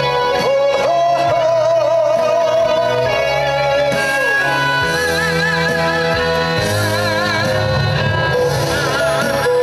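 Korean trot song performed live over a backing track, with long held notes that waver in vibrato over a steady bass and guitar accompaniment.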